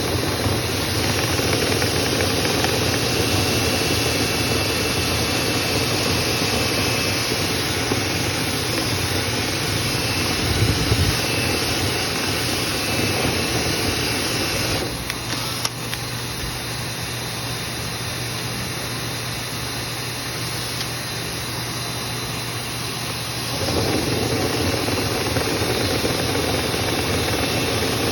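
Dryer vent cleaning equipment running with a steady drone and a low hum. Part of the noise cuts out about halfway through, leaving a quieter drone, and comes back near the end.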